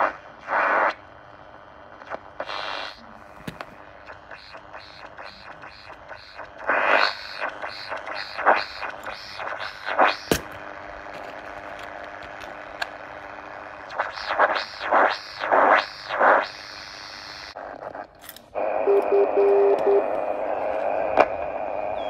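Kolon RX-606AC portable radio on the AM band, giving out static and crackle with runs of rapid, repeated whistling bursts: interference from a nearby homemade transistor oscillator and search coil, the beat note of a DIY radio metal detector. From about three-quarters of the way in, the static turns to a louder, steady buzzing hiss.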